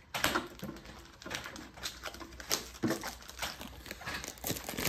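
Plastic shrink wrap crinkling and crackling in irregular bursts as it is pulled off a tin by hand.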